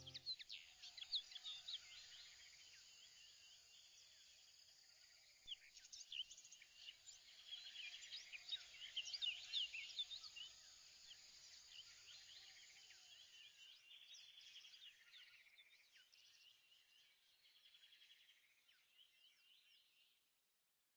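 Faint chorus of small birds chirping and twittering, many quick high calls overlapping, busiest in the middle and dying away just before the end.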